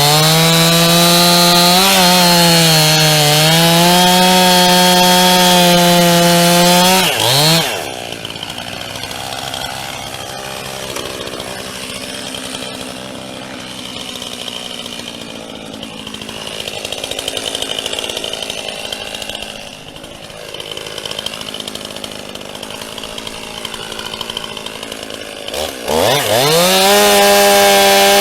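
Chainsaw at full throttle cutting through a white oak log, its pitch dipping and recovering under load. About seven seconds in it drops back to a much quieter idle, and about two seconds before the end it revs up again to full speed.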